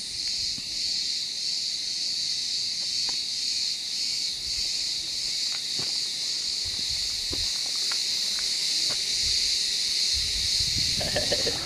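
Chorus of cicadas: a steady, dense high-pitched shrilling that holds unbroken throughout.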